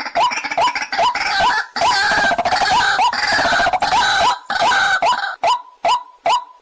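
Waterhen calls, a short upward-hooked note repeating about three times a second. A harsher chorus of overlapping calls runs over it through the middle and drops away after about five seconds, leaving the single repeated note. This is a recorded call of the kind played as a lure.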